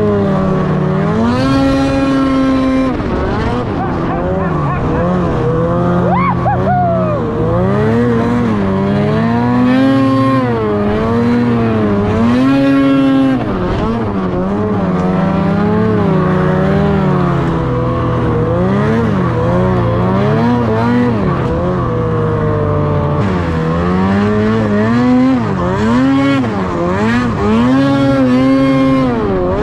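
Ski-Doo Summit X 800R E-TEC two-stroke twin snowmobile engine on repeated throttle hits, revving up hard and backing off, its pitch rising and falling every second or two.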